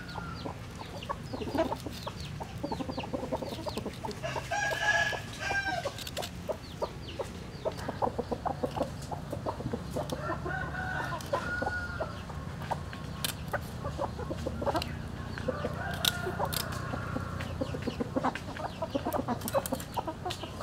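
Chickens clucking and calling in three bouts over a low steady background. Throughout, a kitchen knife makes quick short clicks and scrapes as it cuts and scrapes raw fish on a wooden block.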